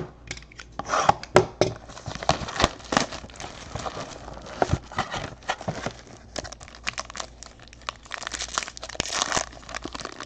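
Foil wrapper of a Topps Tier One baseball card pack crinkled and torn open by hand: a run of irregular crackles and sharp rips, busiest near the end.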